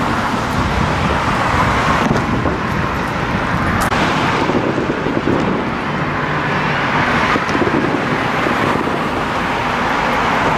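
Road traffic: cars driving past close by, a continuous tyre and engine noise that swells and eases as they go by.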